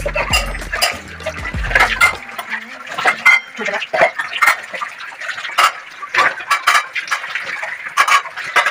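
Stainless-steel plates, bowls and lids clattering and clinking as they are set into a steel wire dish rack, in quick irregular knocks. Background music stops about two seconds in.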